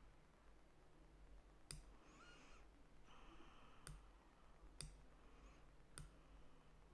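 Four faint, sharp computer mouse clicks, spaced irregularly, over near-silent room tone.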